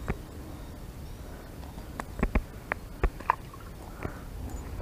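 Handling noise: a few scattered clicks and taps, most of them clustered in the second half, over a low steady rumble.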